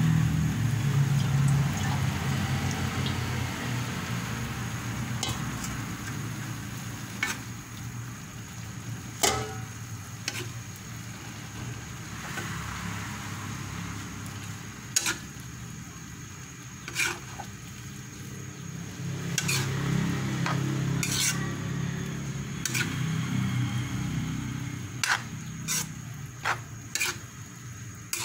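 Bihon rice noodles being stir-fried in a large metal wok: a steady sizzle and the scrape of a metal spatula turning the noodles, with sharp clinks of the utensil against the wok every few seconds, more often near the end.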